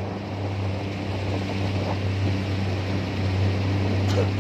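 Outboard motor of an inflatable boat running steadily under way, a low even hum over the rush of water and wind.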